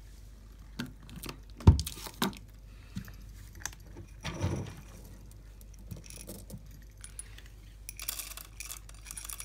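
A cat eating dry kibble from a plastic bowl: pieces clicking and rattling against the bowl, with a few sharp knocks, the loudest about two seconds in. Near the end a hand in the bowl sets off a busier, crisp rattle of kibble.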